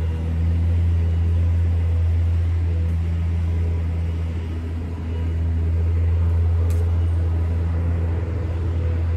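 Steady low mechanical hum of a downtown street, unchanging throughout, with a fainter higher tone above it and a faint click about seven seconds in.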